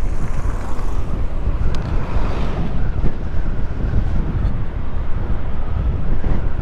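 Wind buffeting the microphone on a moving electric moped: a steady low rumble with no engine note.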